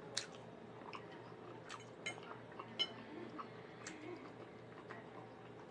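Quiet eating sounds: a person chewing a forkful of yellow rice, with scattered soft clicks from the mouth and a metal fork touching a plate, over a faint steady hum.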